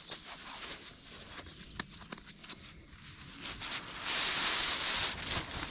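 Nylon stuff sack rustling as it is handled at its drawcord opening, with a few light clicks about two seconds in and a louder stretch of swishing fabric near the end.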